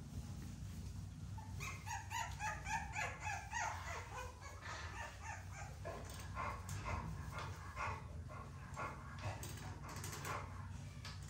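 Four-week-old XL pitbull puppies whining and yipping in a quick run of short, high calls starting about two seconds in, with scattered calls after that, over a steady low hum.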